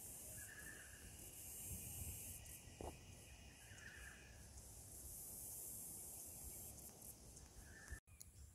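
Near silence: faint outdoor bush ambience, a steady high hiss with a few faint short chirps.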